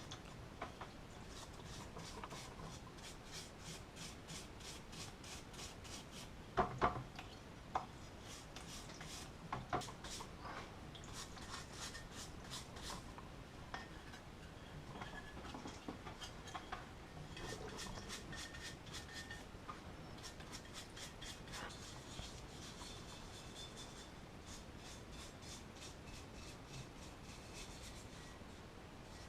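Rapid scrubbing strokes on the metal parts of an old Sievert blowtorch being cleaned in gasoline, with a few sharp knocks about a quarter of the way through.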